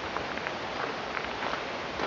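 Steady rush of a mountain stream, with scattered short light taps or ticks over it.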